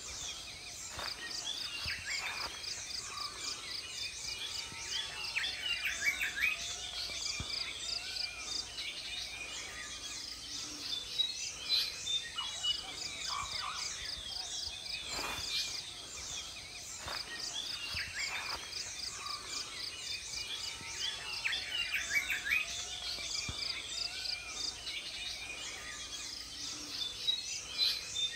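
Wild animal chorus: many birds chirping and calling over a continuous high-pitched pulsing chorus of frogs, with a few faint knocks.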